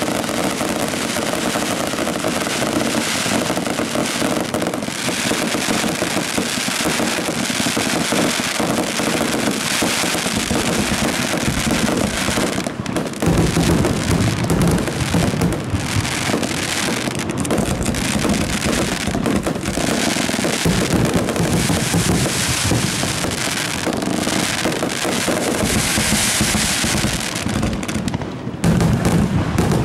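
Fireworks display: a dense, continuous barrage of aerial shell bursts and crackling, loud throughout with no gaps.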